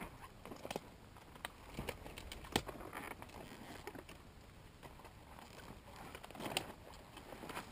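Faint scattered knocks, scuffs and rustles of a rider stepping through dry corn stubble and climbing onto a Yamaha YZ125 dirt bike, its engine not running. There is a slightly louder scuff about six and a half seconds in.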